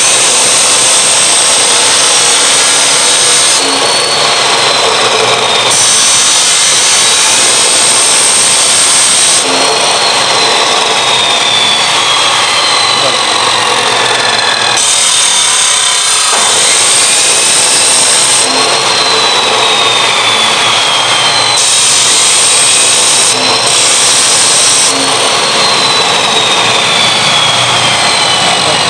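Large abrasive cut-off wheel running loud and steady while a motorcycle's third-gear pinion is pressed against its side. Four spells of harsh, high grinding hiss come as the gear's worn face is ground flat; the face had been cut away, making the third gear slip out. The machine's pitch falls slowly after each spell.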